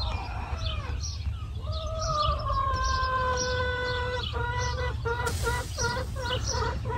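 Hen in a nest box calling as she lays an egg: long drawn-out calls that slowly drop in pitch, then from just past halfway a quick run of short clucks, about two or three a second. A steady low rumble runs underneath.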